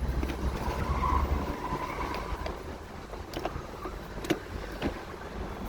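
A few sharp, separate clicks and taps from a gear lever knob being handled and screwed back onto the lever, over a low rumble that fades out about a second and a half in.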